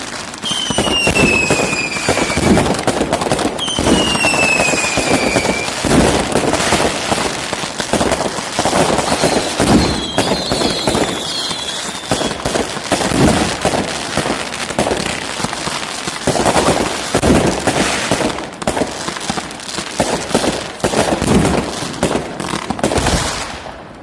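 Professional fireworks display: a dense, continuous barrage of shell launches and bursts with crackling. Two whistles fall in pitch within the first six seconds, and a warbling whistle sounds about ten seconds in.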